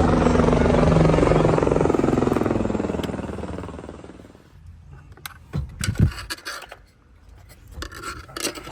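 Car engine revved high, its pitch falling steadily as the revs drop and the sound fades over about four seconds; after that, a series of sharp clicks and knocks.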